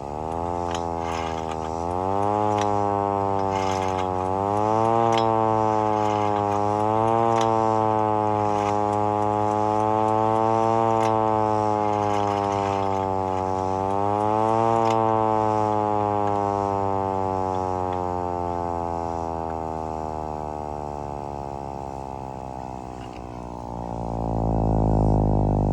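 Vixen Horns VXS-2000MTP hand-crank tornado siren being wound up by hand. Its pitch climbs over the first two seconds, wavers up and down with the cranking for about thirteen seconds, then winds down in a long falling wail. A low hum swells near the end.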